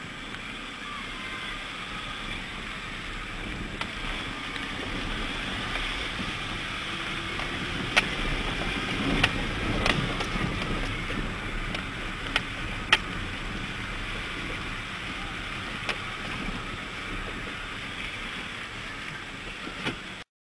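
Steady outdoor background noise picked up by a handheld camera's microphone, with a few sharp clicks scattered through the middle; it stops abruptly near the end.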